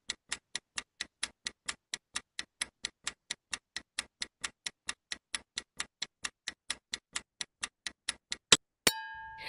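Countdown timer sound effect: steady clock ticking, about four ticks a second. Near the end the ticking stops, and a single ringing tone sounds as the countdown finishes.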